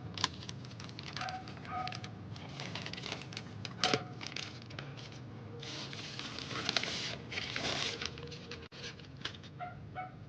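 Hands handling packaging and accessories: a run of light clicks and taps, with two stretches of rustling a little past the middle. Short high-pitched squeaks come a few times.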